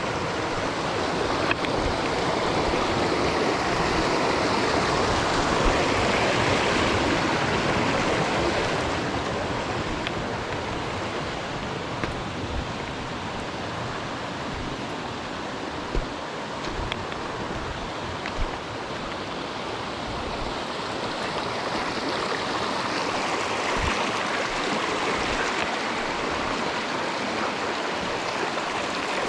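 Mountain stream rushing over rocks in a steady wash of water noise, louder in the first few seconds, easing in the middle and swelling again near the end, with a couple of brief low knocks midway.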